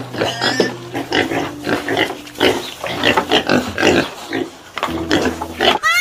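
Piglets vocalizing: many short, overlapping calls in quick, irregular succession.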